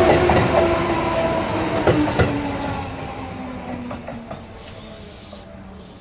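Seibu 4000 series electric train passing and moving away. Two sharp wheel clacks over the rail joints come about two seconds in, then the running noise and a falling hum fade.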